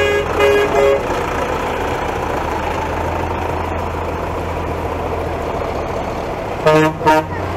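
A Zetor farm tractor's diesel engine running steadily as it pulls a loaded passenger wagon past. A few short horn toots sound in the first second, and two louder, lower-pitched horn blasts near the end.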